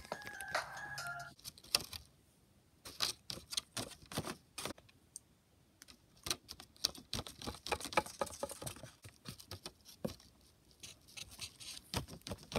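Irregular clicks and taps of toy figurines being handled and hopped along a hard surface, with short quiet gaps. Background music plays for the first second or so, then stops.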